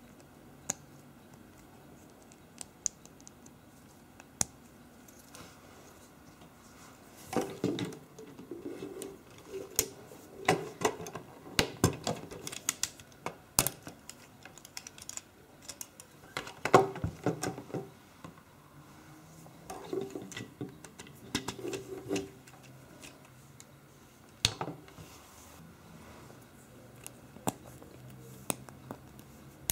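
LEGO Technic plastic parts clicking and rattling as they are handled and pressed together, in irregular clusters of sharp clicks with quiet gaps between them.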